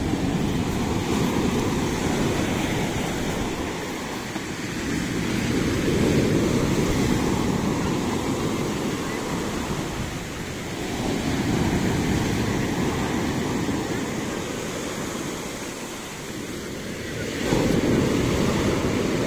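Heavy sea surf breaking on a shingle beach, the roar swelling and ebbing with each wave about every five to six seconds as foam washes up over the pebbles.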